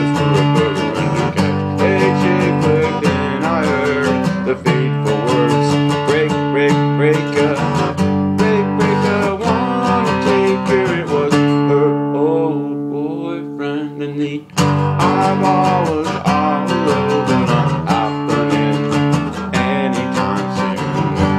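Acoustic guitar strummed in a steady rhythm. Partway through it eases off to softer, ringing chords for a couple of seconds, then a hard strum brings the full strumming back.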